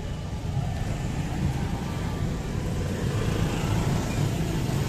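Busy city street at night: a steady low rumble of road traffic, without any single distinct event.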